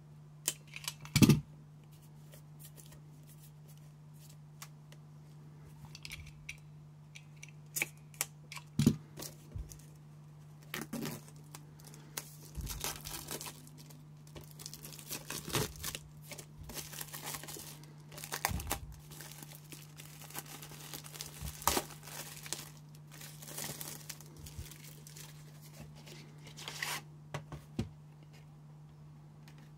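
Plastic shrink wrap on a Blu-ray steelbook case being slit with a small cutter and torn off, crinkling and crackling in irregular bursts over a steady low hum, with a sharp snap about a second in. Near the end comes rustling from the cardboard slipcard being handled.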